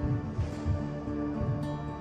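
Background music: a song in an instrumental stretch between two sung lines, with held notes over a low beat.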